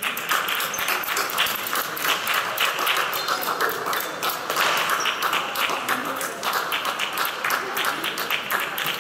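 Spectators applauding, the clapping breaking out suddenly and going on dense and steady.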